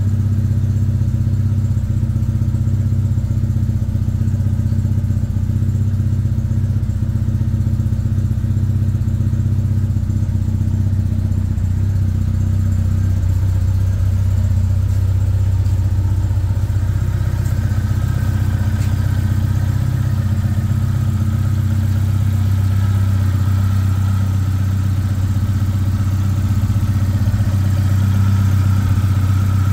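Ford Escort Mk1 RS1600's Cosworth BDA twin-cam four-cylinder engine running steadily, with no revving.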